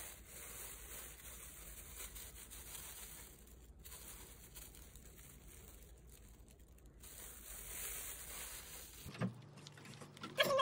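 Faint crinkling and rustling of a thin plastic bag as crumbled seasoned seaweed is shaken out of it.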